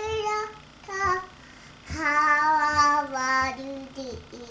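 A young girl singing alone, unaccompanied, a few short phrases and then a long held note about two seconds in.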